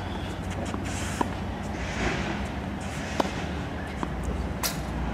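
Tennis ball being hit and bouncing during a rally: a series of sharp pocks, the clearest about a second in, just past three seconds and near the end, over a steady low background rumble.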